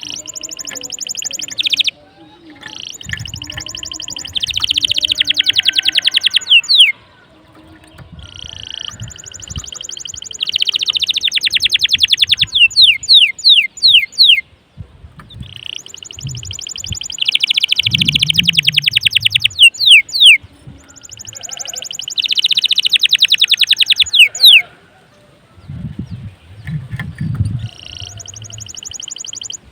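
Domestic canary in full song: long, very rapid trills in phrases of a few seconds, separated by short pauses, with quick falling whistled notes between some of the phrases.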